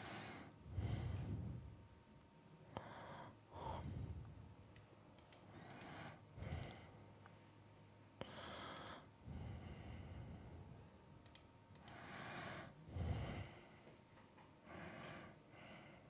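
Faint breaths and sighs close to a desk microphone, coming irregularly every second or two, with a few light clicks.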